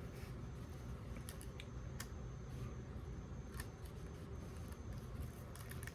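Faint scattered clicks and light scraping of a utensil working sauce and pasta in a plastic microwave-meal tray.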